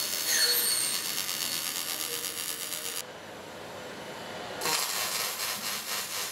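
Robotic MIG/MAG welding arc running the EWM React short-arc process, a steady crackling hiss as the torch lays a seam. The arc stops about three seconds in and strikes again about a second and a half later.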